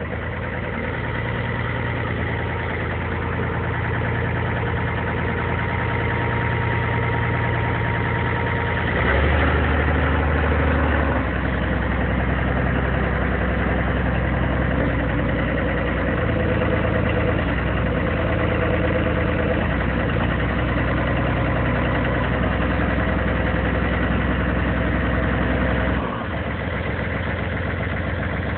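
Komatsu D37E-5 crawler dozer's diesel engine idling steadily. It grows a little louder for a couple of seconds about nine seconds in and drops slightly near the end.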